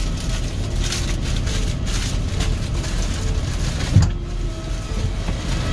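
Low, steady rumble of ground-service vehicle engines running beside a parked airliner, with one short thump about four seconds in.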